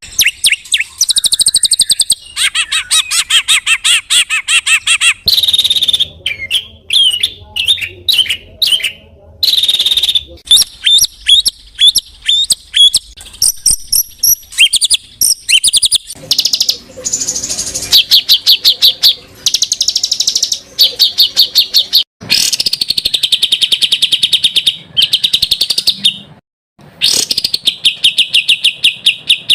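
Songbird song edited together from several recordings: fast, harsh trills and rattling series of repeated notes, and runs of quick falling whistled notes. The segments change with abrupt cuts every few seconds.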